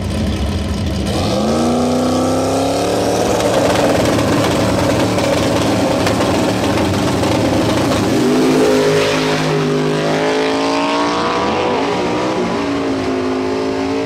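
V8 drag-racing car at full throttle on a pass down the strip. The engine note climbs steeply a second or two in, runs hard and loud, then climbs again and drops near the end, as at gear changes.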